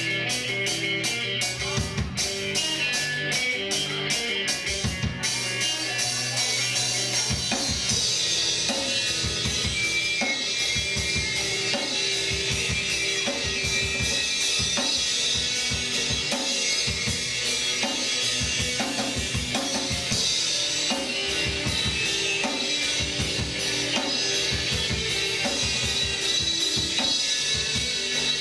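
Live rock band playing: a drum kit keeps a steady beat of kick and snare under electric guitar. Quick, even cymbal ticks carry the first few seconds, and brighter cymbals come in from about eight seconds.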